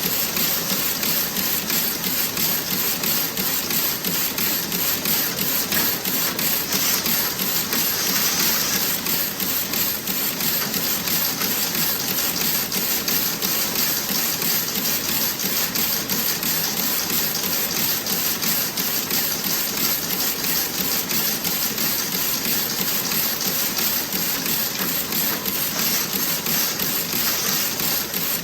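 Toe-sock knitting machine running, a fast, steady mechanical clatter of many clicks a second.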